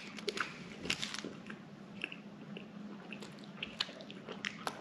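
Close mouth sounds of people chewing milk chocolate: soft, irregular clicks and smacks.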